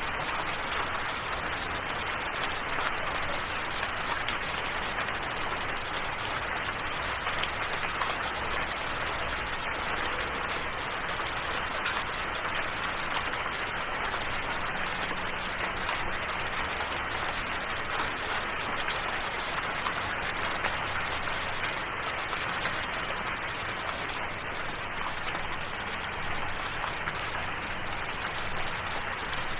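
Steady rain falling: an even hiss of rainfall with many small drop ticks, unchanging throughout.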